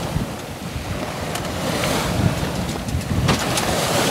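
Bow wave of a sailing yacht under sail rushing and splashing along the hull, with wind buffeting the microphone.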